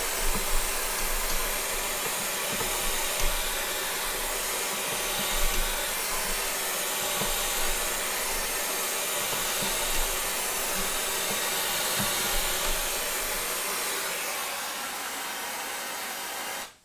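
Oxy-fuel gas torch burning with a steady hiss, heating a seized broken bolt in the tractor's pickup-hitch bracket to free it. A few light knocks of tools on metal sound through it, and the hiss cuts off suddenly near the end.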